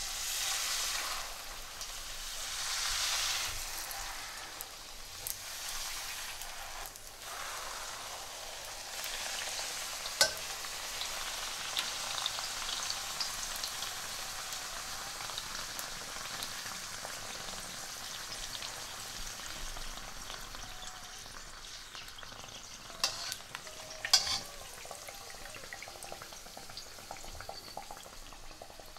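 Golgappa (pani puri) semolina dough discs deep-frying in hot oil in a steel wok: a steady sizzle, loudest in the first few seconds after the discs go in and easing a little after. A few sharp clicks stand out, two close together near the end.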